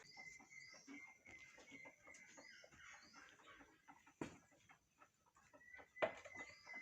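Faint chickens clucking with small birds chirping, and two sharp knocks, about four and six seconds in.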